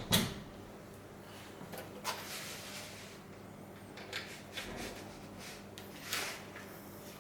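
Wiring harness and connectors being handled: a sharp click at the very start, then a few light clicks and rustles, over a faint steady hum.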